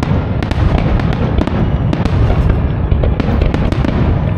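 Aerial fireworks display: a rapid, unbroken run of booms and sharp crackling reports over a heavy low rumble.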